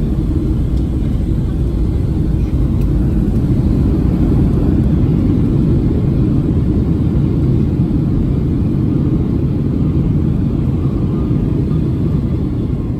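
Steady, loud rumble inside a Boeing 757's cabin during the landing roll, engine and runway noise together, easing slightly near the end.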